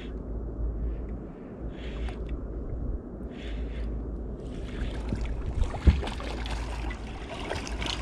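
Wind rumbling on the microphone and water splashing and lapping at the side of a boat while a hooked fish is reeled in on a spinning reel. The splashing comes in short patches at first and grows nearly continuous in the second half. A single sharp thump about six seconds in is the loudest sound.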